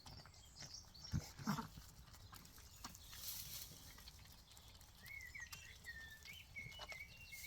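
Zwartbles ewe softly nickering to her newborn lamb, a faint low call about a second in, with thin high chirping in the last couple of seconds.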